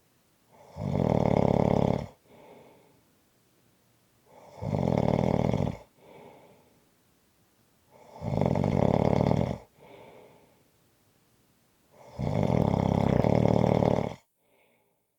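A person snoring heavily: four loud snores about every four seconds, each followed by a short, quieter breath.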